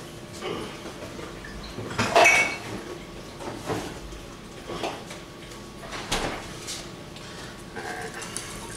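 Scattered clinks and knocks of dishes and kitchen utensils, the loudest about two seconds in. Near the end a wire whisk starts beating in a bowl of custard mixture.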